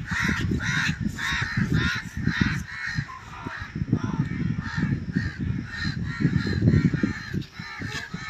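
Crows cawing over and over, several harsh calls a second, over a low rumble and thumps on the microphone.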